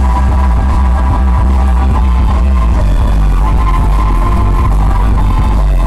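Loud dance music over a sound system, with a heavy, steady bass.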